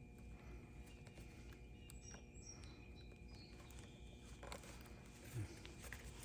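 Near silence with faint room tone. A few seconds in comes a short run of faint, high bird chirps stepping down in pitch, and near the end a soft knock.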